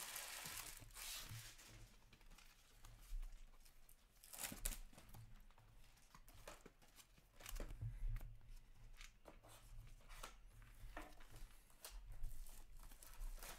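Hockey trading cards handled by hand: soft rustling, sliding and small clicks as cards are flipped and sorted, with a longer tearing, crinkling rustle in the first second or so. A steady low hum runs underneath.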